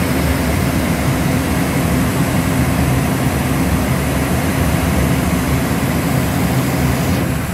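Steady low rumble of jet airliner engine noise.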